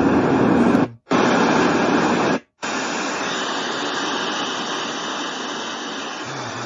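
White noise machine playing a steady noise track. The sound cuts out abruptly twice, about one and two and a half seconds in, as if the track is being switched. After the second break it comes back quieter and thinner, more of a hiss.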